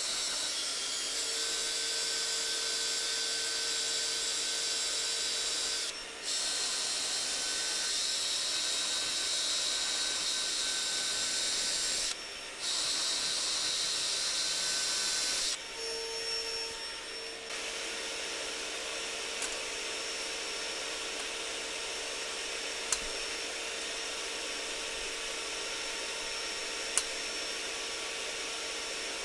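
A power drill running in long steady stretches with a high whine, most likely drilling out rivets in the steel tent frame. It stops briefly about 6 and 12 seconds in and for a longer break around 16 seconds, then runs on more quietly and steadily.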